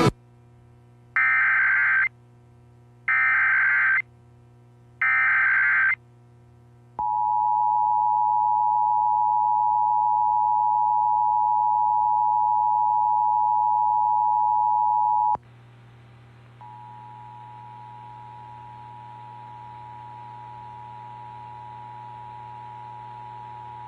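Emergency Alert System signal: three short bursts of warbling data tones (the SAME header), then the steady two-tone attention signal held for about eight seconds, announcing an emergency alert. After it cuts off a hiss comes up, and about a second later the attention signal starts again, fainter, running under the hiss.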